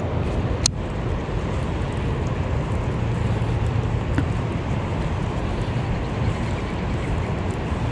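Steady low outdoor rumble with a single sharp click a little under a second in.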